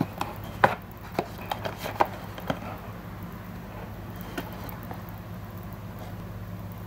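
Handling noise from a small plastic toy figure and its cardboard box: a quick run of light clicks and taps in the first two and a half seconds, a few faint ones about four seconds in, over a steady low hum.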